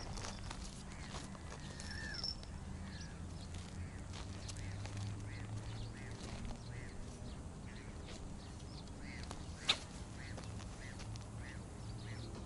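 Distant waterfowl calling over and over in short, faint calls, with a low steady hum underneath and one sharp click about ten seconds in.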